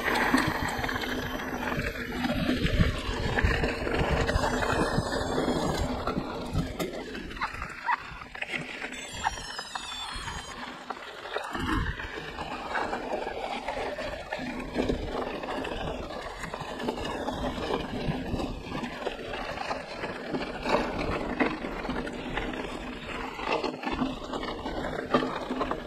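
Mountain bike being ridden over a dirt trail: a steady rush of tyre and wind noise, broken by frequent rattles and knocks as the bike goes over bumps.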